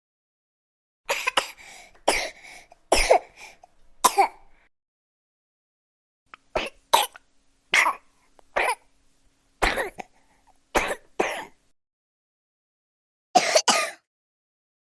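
A baby coughing: about a dozen short coughs in groups of one to three, with silent pauses of a second or two between the groups.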